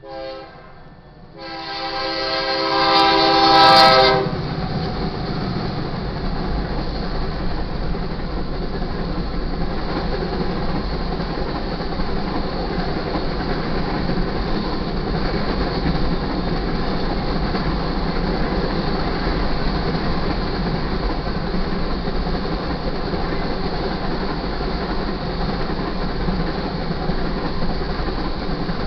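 A BNSF grain train's locomotive horn gives a short toot and then a loud longer blast ending about four seconds in, as the train, led by a GE Dash 9-44CW, arrives. Then comes the steady rumble and clickety-clack of the grain train's cars rolling past.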